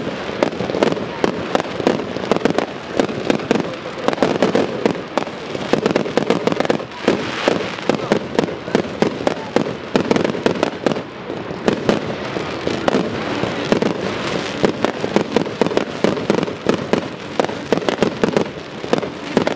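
Aerial fireworks bursting one after another: a dense, continuous barrage of bangs and crackling from shells and rising sparking tails, without a pause.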